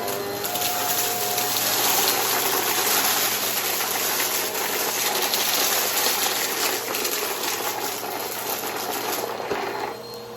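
Vacuum cleaner running with its brushroll, a steady rushing airflow with a faint motor whine, easing off slightly near the end.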